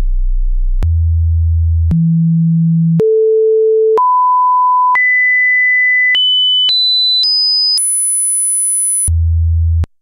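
Teensy 3.1 audio test signal generator putting out sine-wave test tones as its frequency presets are stepped through on the keypad. A single pure tone climbs in steps from a low hum to a very high whistle, each pitch held for about a second or less with a click at every change, then drops back to a low tone near the end and cuts off.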